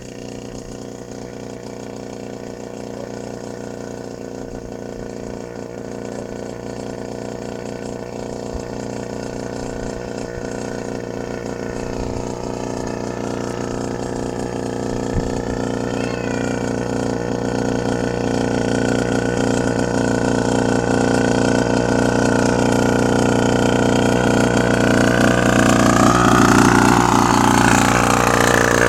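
ATV engine running at a fairly steady pitch, growing gradually louder, with the pitch wavering slightly near the end.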